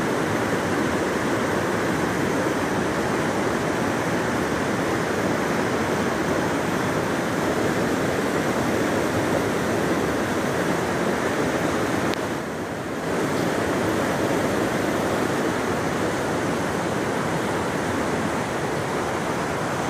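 Rushing whitewater of a creek in flood: a steady, loud wash of churning rapids, briefly softer about two-thirds of the way through.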